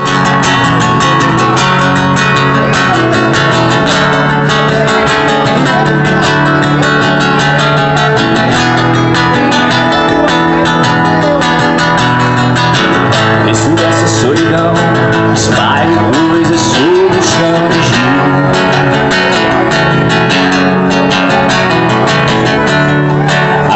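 Acoustic guitar playing the instrumental introduction of a song, strummed chords with melody notes over them.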